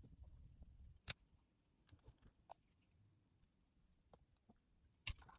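Small screws being driven back into a cassette deck mechanism with a screwdriver: faint scattered clicks and taps, with one sharper click about a second in and a short cluster of clicks near the end.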